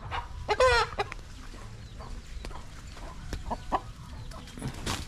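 Aseel chickens clucking, with one loud, wavering squawk a little over half a second in and short scattered calls after it.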